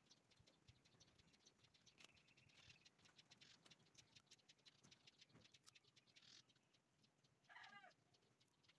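Near silence, with faint clicks and crinkling as wires and a plastic bag are handled. Near the end a cat meows once, briefly and faintly.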